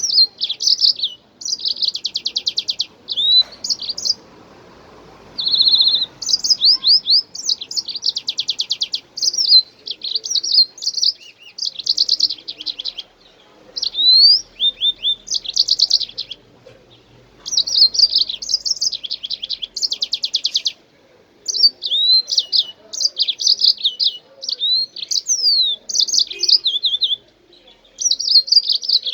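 Cockatiel singing: phrase after phrase of fast chirps, rapid trills and short rising and falling whistles, broken by brief pauses.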